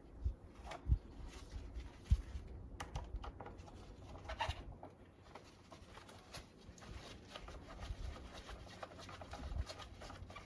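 Small clicks, taps and rustles of hands working a motorcycle battery's cables and terminal hardware into place, with a few soft thumps in the first two seconds.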